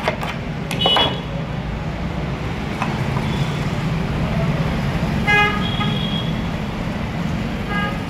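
Steady low rumble of road traffic, with a short vehicle horn toot about five seconds in. Near the start come a couple of scraping strokes of a file on metal.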